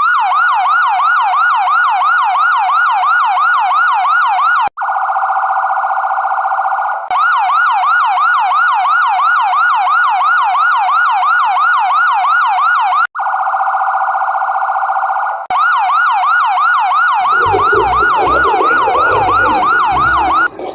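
Electronic emergency-vehicle siren in a fast yelp, its pitch rising and falling several times a second. Twice it switches for a couple of seconds to a steadier, rapidly warbling tone. Near the end music with a beat comes in underneath.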